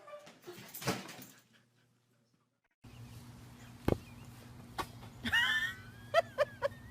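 A pet's high gliding whine followed by a run of short yelps, over a steady electrical hum with one sharp click before them.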